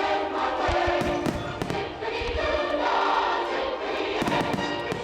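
Choral music with sustained sung chords, with firework shells bursting through it as several sharp bangs.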